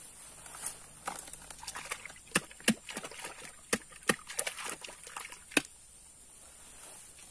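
Irregular sloshing and splashing of water with a string of sharp knocks, lasting a few seconds before dying away.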